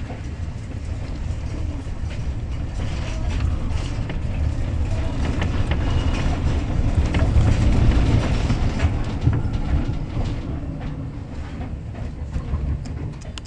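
Tram running along the track, heard from inside the car: a steady low rumble of wheels and running gear that grows loudest about two-thirds through and then eases, with light clicks as the wheels pass rail joints and points near the end.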